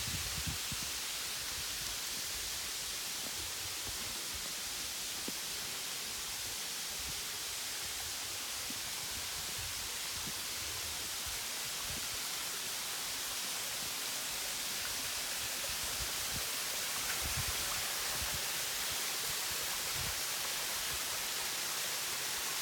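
Waterfall: a steady, even rush of falling water, with a few faint low thumps.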